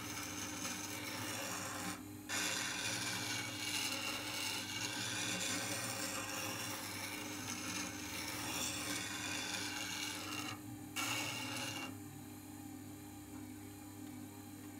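JET JSSG-10 wet grinder running while a wood-handled turning tool, held in a jig, is ground on its wet stone with a steady rasping over the motor's hum. The rasping breaks off briefly about 2 and 11 seconds in and dies away about 12 seconds in, leaving mainly the motor running.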